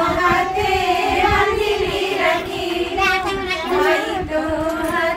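Voices singing over one long held note that runs steadily underneath, with other voices chattering in the room.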